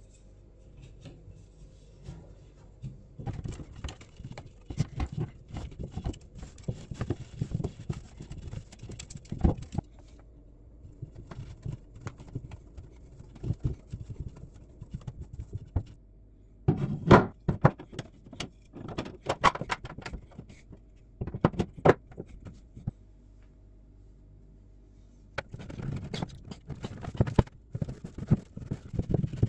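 Handling noise of 3D-printed plastic filter tubes being fitted together and dressed in pantyhose: irregular knocks, taps and scrapes of plastic against plastic and a stone countertop. They come in spells with quiet stretches between, and the sharpest knocks fall around the middle.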